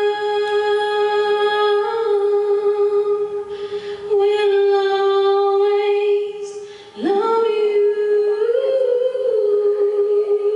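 A voice holding long, steady sung notes, each lasting several seconds. A note slides up into place about seven seconds in, and the pitch steps up briefly soon after.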